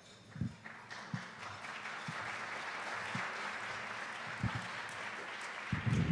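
Audience applauding, building up about a second in and holding steady, with a few low thumps through it and a cluster of bumps near the end.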